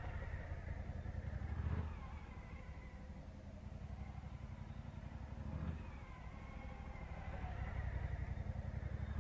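Large motorcycle engine running at low speed through tight slow turns, its pitch rising and falling with the throttle. It swells in loudness about every four seconds as the bike swings out of each turn past the camera.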